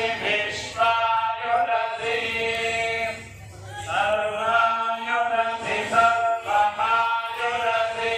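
Voices chanting a Hindu devotional chant in long held notes, phrase after phrase, with a short break about three seconds in.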